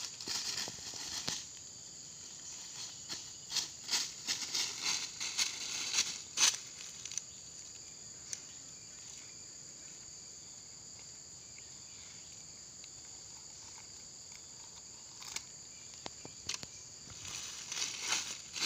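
Footsteps crunching through dry fallen leaves for the first several seconds and again near the end, over a steady high insect drone.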